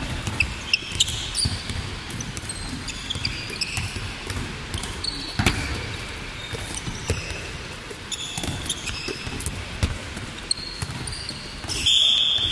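Handballs thudding on being caught, thrown and bounced on a wooden sports-hall floor, with sports shoes squeaking in short high chirps and running footsteps, ringing in a large hall. A short, loud whistle blast near the end.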